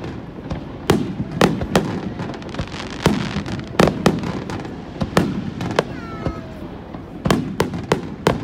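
Aerial firework shells bursting overhead: about a dozen sharp bangs, several in quick succession, each trailing off in an echoing rumble.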